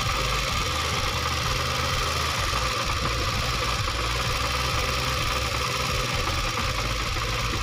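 Honda CD 70's small single-cylinder four-stroke engine running steadily at a raised idle while its carburettor's petrol mixture screw is being turned to set the fuel mixture.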